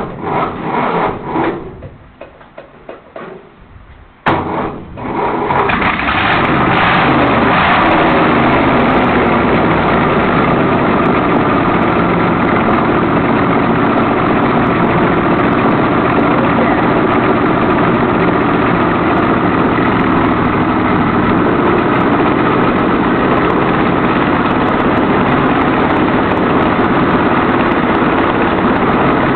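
Early-1970s Chevrolet V8 running with no headers or exhaust, straight out of the exhaust ports. It fires unevenly and falters at first, then catches about four seconds in and runs steadily and extremely loud.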